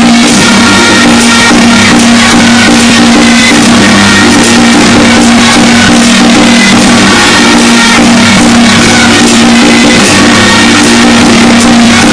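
Loud temple-procession music: a long-held low note sounds throughout over a dense clatter of percussion.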